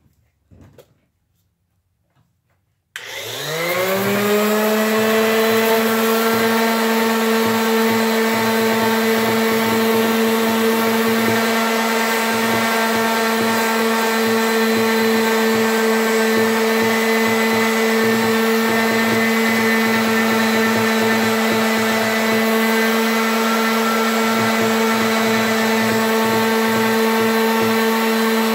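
Ryobi random orbital palm sander switched on about three seconds in, its motor spinning up within a second to a steady whine, then running evenly while sanding paint off a steel axe head.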